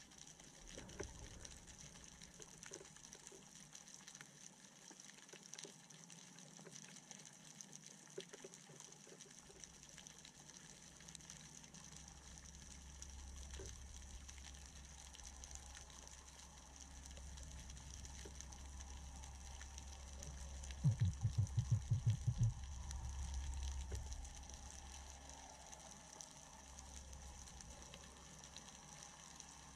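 Underwater ambience: faint water hiss, with a low rumble that comes up about a third of the way in. A quick run of low thuds comes about three-quarters of the way through.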